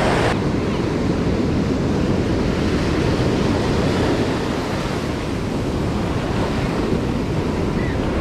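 Surf breaking and washing up over the sand, with wind buffeting the microphone.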